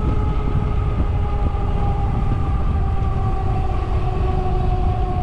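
A bicycle rolling at speed, with heavy wind rush on the microphone and a steady whine that slowly drops in pitch as the bike eases off.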